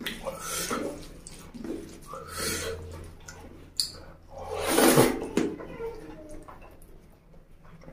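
Close-miked wet eating sounds: a hand squishing and mixing curry-soaked rice, and chewing, in irregular bursts, the loudest about five seconds in as a handful goes into the mouth.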